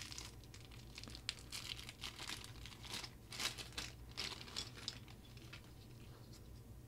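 Small clear plastic bag crinkling as it is handled and opened, a run of faint crackles that dies down about five seconds in.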